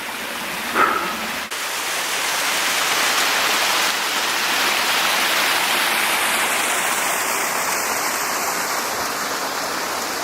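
Steady rush of a waterfall and its creek, a loud, even hiss of falling water.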